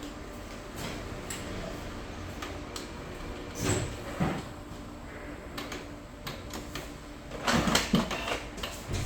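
Canon MX366 inkjet printer working through a photo test print: a steady mechanical hum with scattered clicks, and two louder rattling clunks, about four seconds in and again near the end.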